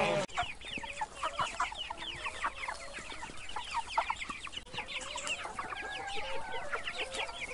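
Newly hatched chicks peeping: a fast, unbroken stream of short, high, downward-sliding peeps from several chicks at once.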